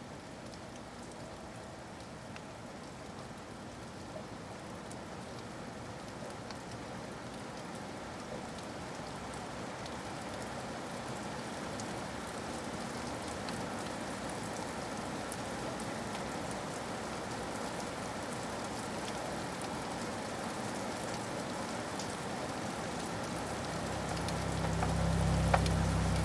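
Steady rain, an even patter that grows gradually louder. Near the end a low bass note swells in as music begins.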